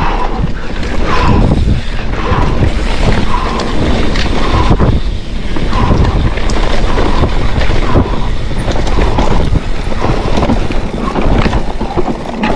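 Wind buffeting the microphone while a hardtail mountain bike is ridden fast down a rough trail. Tyres on dirt and repeated knocks and rattles come from the bike over the bumps.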